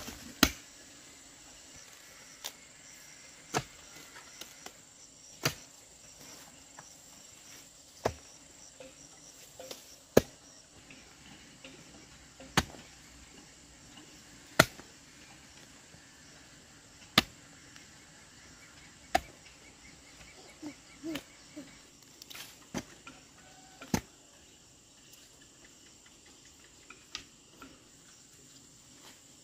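A hand tool such as a hoe or machete chopping in single sharp strikes, roughly one every two seconds, with a steady high insect hum behind.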